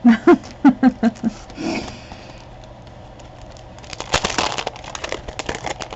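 Paper and plastic packaging rustling and crinkling as craft pieces are handled, turning into a dense burst of crinkly rustling about four seconds in. A few short murmured syllables come at the start.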